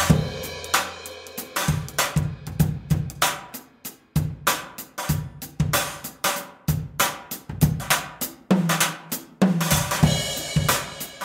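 Drum kit played hard in a driving groove: kick drum and snare hits with hi-hat and crash cymbals. The cymbals ring out near the start and again near the end, and there is a brief break about four seconds in.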